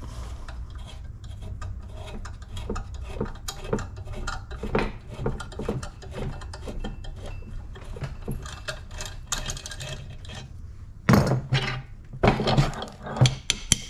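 A 3/8-16 hand tap in a T-handle tap wrench, turned by hand to clean up the threads of a brass anode holder held in a bench vise, making small clicks and scraping as it cuts. Several loud metal clanks near the end as the bench vise is worked.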